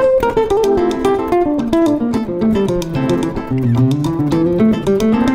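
Background music: acoustic guitar playing a quick plucked melody that steps down and then climbs back up.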